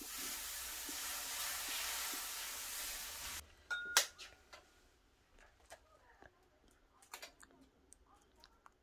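Dosa batter sizzling on a hot pan, a steady hiss that cuts off suddenly a little over three seconds in. Then a single ringing metallic clink and a few faint utensil clicks.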